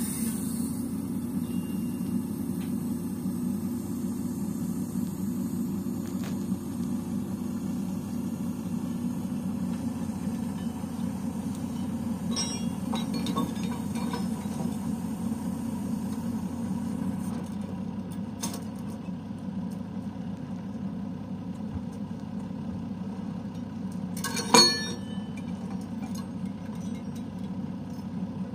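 A truck's engine running steadily, powering its hydraulic loader crane, with light metallic chinks of the lifting chains. Near the end comes one loud metal clank.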